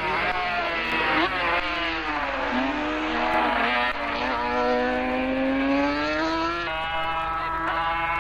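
Racing car engines at high revs, several engine notes overlapping and sliding up and down in pitch as cars accelerate and pass. One note climbs steadily for several seconds, and the sound changes abruptly about seven seconds in.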